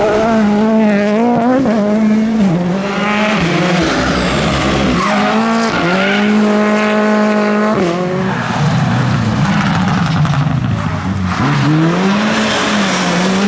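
Rally car engine working hard, its revs rising and dropping with each throttle lift and gear change, then held at a steady high pitch for about two seconds in the middle, over tyre and road noise.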